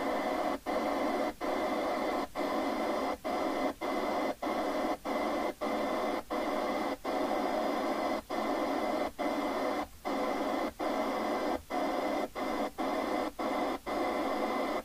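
Receiver static from a President Walker Limited CB radio's speaker, cutting out briefly over twenty times, about every half second, as the channel selector knob is clicked from channel to channel.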